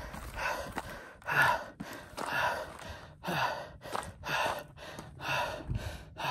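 A man breathing hard and heavily close to the phone's microphone, one deep breath about every second, out of breath from running uphill.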